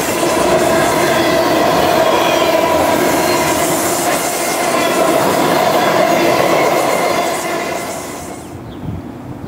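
Freight train of autorack cars rolling past close by, the wheels squealing with several steady held tones over the rattle of the cars. Near the end the sound falls away to a much quieter rumble.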